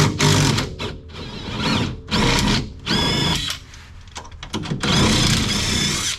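Power tool on the rear control arm bolts of a Honda hatchback, running in about five short bursts. Its motor whine rises at the start of a burst.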